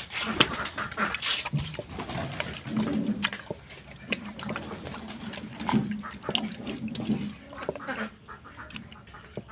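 A bare hand squeezing and mixing raw beef in a thick, wet marinade: irregular squelches and slaps, some louder than others.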